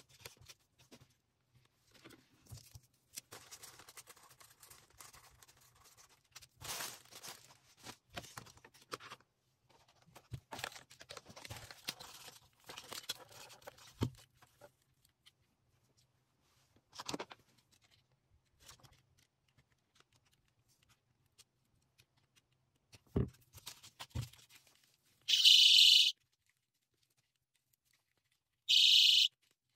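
Rustling of packaging being handled, two clicks, then a doll-shaped personal safety alarm shrieking twice in abrupt, high-pitched bursts of about a second each, near the end, as it is tested.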